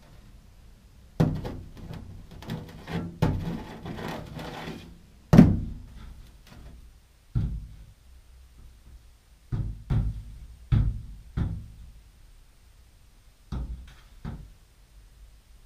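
A magnet repeatedly knocking against the steel side panel of a 1970 VW camper bus, with scraping between knocks early on, then single sharp clunks a second or two apart. It is a magnet test for body filler: the magnet grips bare steel and not thick filler.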